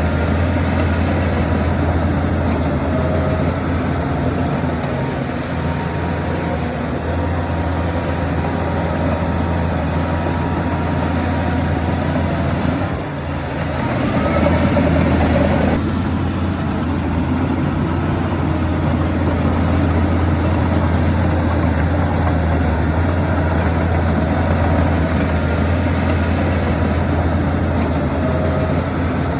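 Heavy diesel engine of earthmoving machinery running steadily with a deep hum. It dips briefly about halfway through, then runs louder for a few seconds.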